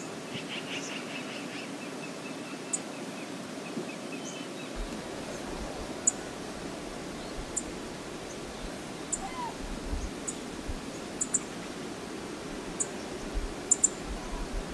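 Steady rush of flowing river water, with a short burst of bird calling near the start. Scattered faint ticks and occasional low thumps run through the rest.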